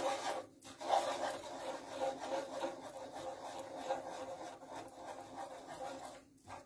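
Wooden spatula stirring a thick white mix of glue and starch in a frying pan, scraping across the pan's bottom in a continuous, uneven scrape with a short break about half a second in.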